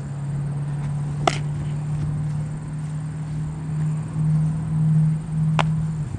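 A baseball pitch smacking into a catcher's leather mitt with a sharp pop about a second in, and a second, thinner pop near the end, over a steady low hum.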